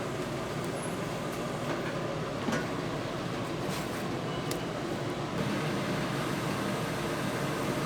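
Steady kitchen noise with a constant mechanical hum, like an extractor fan, and a few light clinks of utensils.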